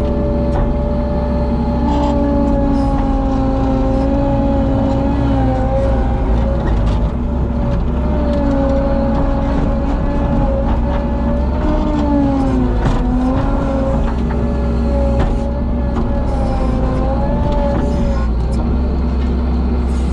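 Skid steer loader's engine running steadily under load, a low rumble with a wavering whine that rises and falls as the bucket is worked, heard from the operator's seat.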